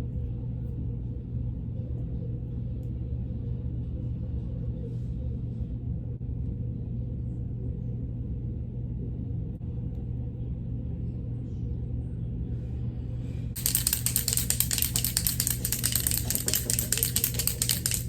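A steady low hum, then about three-quarters of the way through a loud, fluttering hiss of rushing air starts suddenly and keeps going.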